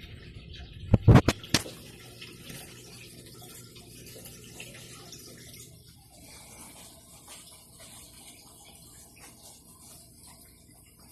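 A few sharp knocks about a second in, then the steady trickle of running water in a terrarium's pool and filter.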